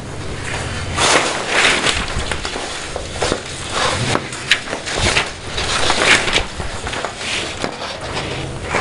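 Many sheets of paper fixed to a wall rustling and flapping in a blown air current, rising and falling in gusts with an occasional sharp snap of a sheet.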